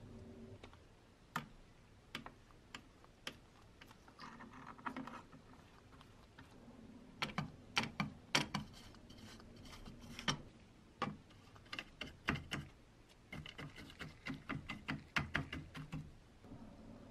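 Metal tool tip clicking and scraping on a tinplate toy boat's deck as stripper-softened paint is worked off: irregular sharp ticks, coming in quick runs about halfway through and again near the end.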